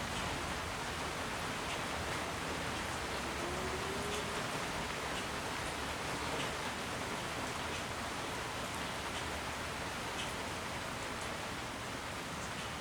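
A 56-inch Canarm industrial ceiling fan running, giving a steady, even rush of moving air.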